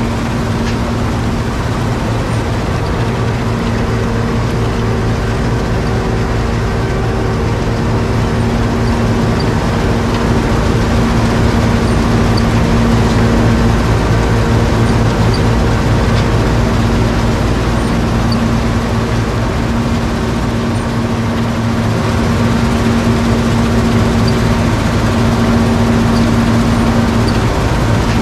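John Deere 7720 Turbo combine running under load while harvesting wheat: its 7.6-litre six-cylinder turbo diesel and threshing machinery make a steady, unbroken drone with a constant hum. It grows slightly louder about a third of the way in and again near the end.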